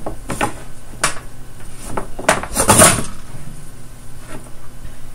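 Tools and objects being handled and set down on a workbench: a run of short knocks and clatters, the loudest a little under three seconds in, while the solder is being looked for.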